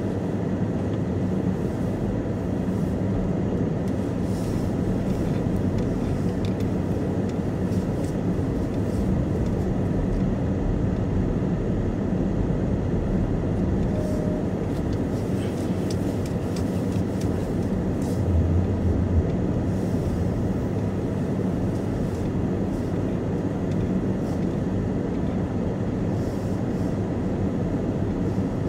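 Car engine and road noise heard from inside the cabin while driving slowly: a steady low rumble that swells briefly about two-thirds of the way through.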